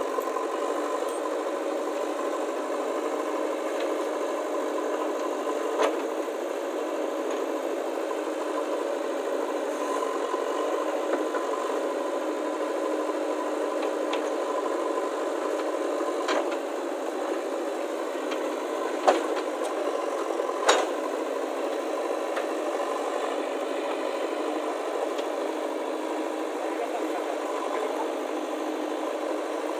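JCB 3DX Eco backhoe loader's diesel engine running steadily under load while the backhoe digs. A few sharp knocks stand out over it, the loudest two about two-thirds of the way through.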